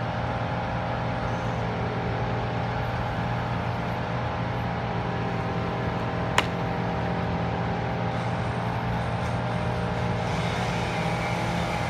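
An engine running steadily at an even speed. One sharp crack about six seconds in.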